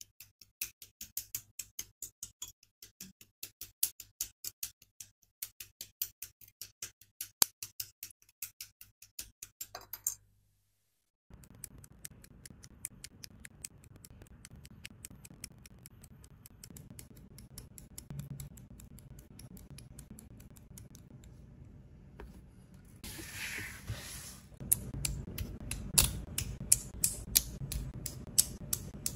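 Many sharp plastic clicks and snaps from a plastic model kit being built: parts nipped off the runner with side cutters and pressed together. The clicks stop for about a second near the middle, then carry on over a low hiss, with a short scraping rustle about two-thirds of the way in.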